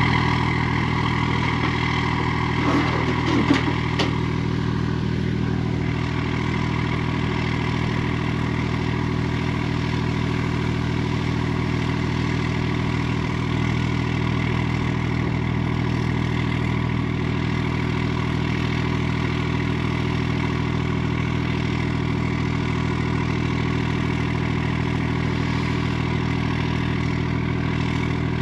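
Engine idling steadily with an even, unchanging hum. A brief irregular sound rises over it about three seconds in.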